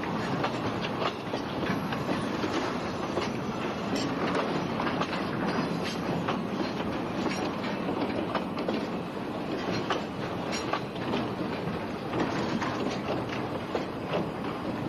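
Freight wagons rolling along yard track, a steady rumble with frequent irregular clicks from the wheels on the rails.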